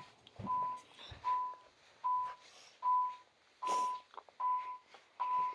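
Electronic beeper of a home alarm system sounding short, even beeps at one pitch, about one every 0.8 seconds, seven in all.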